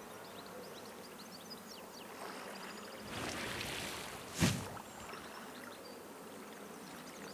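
Rustling of an armful of freshly cut bulrushes being lifted and handled, with one sharp, louder sudden sound about four and a half seconds in, over faint outdoor ambience with small high chirps.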